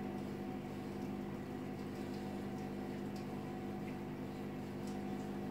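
Steady low machine hum made of several even tones, with a few faint light clicks from small parts being handled.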